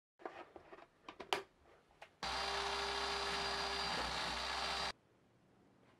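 Food processor motor running steadily for almost three seconds, starting and stopping abruptly, as it blends egg and a thin stream of oil into mayonnaise. Before it, a few light clicks and knocks.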